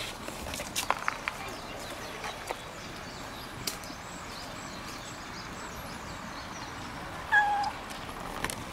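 Orange tabby cat giving one short meow near the end.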